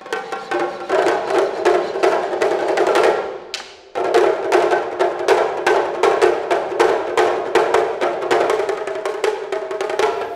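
Traditional Japanese taiko drums played fast by an ensemble, a dense run of sharp strikes with ringing drum tones. The drumming thins out for a moment about three and a half seconds in and crashes back in full at about four seconds.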